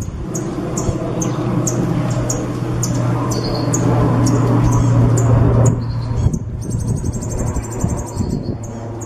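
A songbird repeating short, sharp high chirps, two or three a second, breaking into a fast high trill about six and a half seconds in, over a steady low hum.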